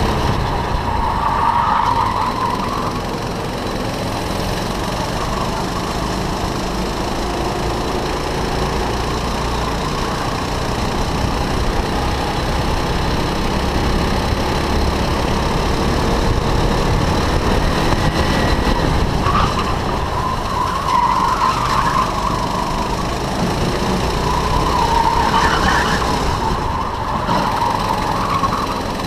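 Go-kart engine running hard, heard from an onboard camera, its pitch rising and falling. Tyres squeal briefly near the start and a few times in the last ten seconds as the kart corners.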